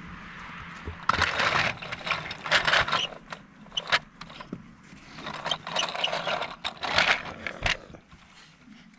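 Plastic toy dump truck loaded with small plastic pieces, pushed and scraped along a wooden table in several short bursts of scraping and rattling.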